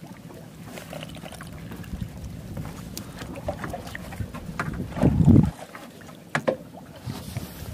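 Small fishing boat at sea: a steady low rumble with wind on the microphone, swelling louder for about half a second around five seconds in, with a few light knocks.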